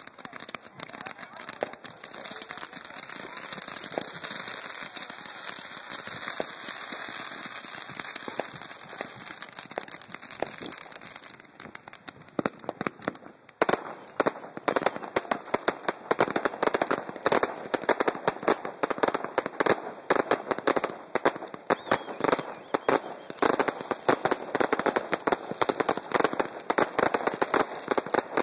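Fireworks going off close by: a continuous hiss of comets and fountains shooting up with scattered pops, then from about halfway a dense, rapid crackling of crackle-effect stars bursting overhead, louder than before.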